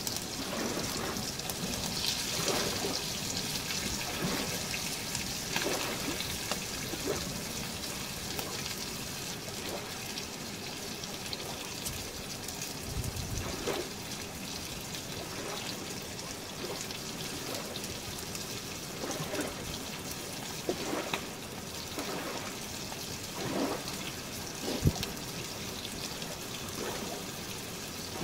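Bacon and diced apples sizzling in a frying pan over a small campfire: a steady hiss with scattered small pops. A single sharp knock comes a few seconds before the end.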